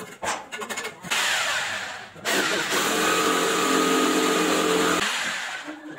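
Handheld electric angle grinder cutting into the brick masonry. It starts about a second in, breaks off for a moment, then runs steadily with a whining motor note before winding down near the end.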